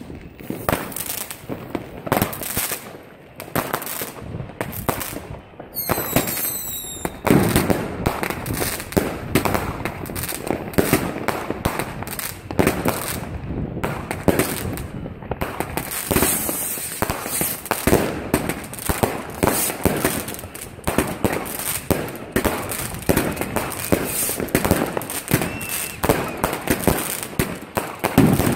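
Weco Scorpion firework battery firing: a rapid, continuous run of shots launching and bursting, one after another. A brief whistle comes about six seconds in.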